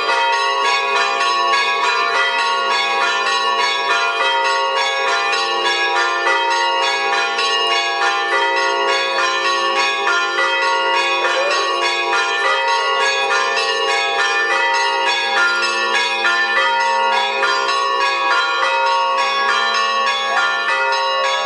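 Church bells ringing fast and without pause, many ringing tones overlapping: the peal rung during an icon procession.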